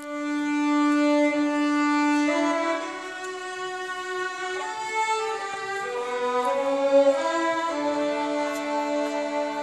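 A group of violins playing a hymn together. It opens on one long held note, then moves into a melody of shorter notes.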